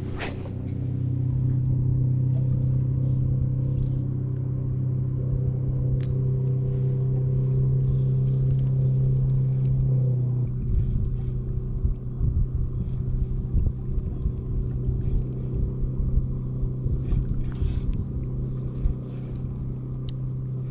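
An engine running at a steady speed, a low even hum. From about halfway through, wind buffets the microphone with an uneven rumble.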